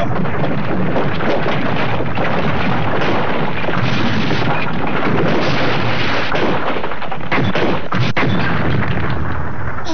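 Animated sound effect of a mine tunnel caving in: a continuous loud rumble with many crashes of falling rock and breaking timber props, cutting off suddenly near the end.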